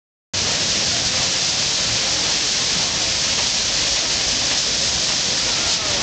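Waterfall sheeting over a rock face: a steady, hissing rush of falling water that cuts in just after the start.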